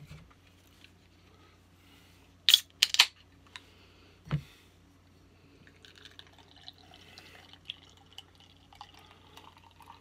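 A can of Songbird Pilsner cracks open with two sharp snaps, followed by a dull knock. Then the beer pours from the can into a glass, fizzing, with many small ticks and drips.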